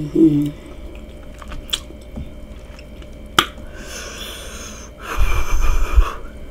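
A person eating seafood boil close to the microphone: chewing and sharp mouth clicks, with a short hummed "mm" at the start. Near the end there is about a second of breathy, rumbling blowing, as if cooling hot food.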